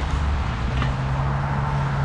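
A vehicle's low, steady rumble, with a steady hum joining in under a second in.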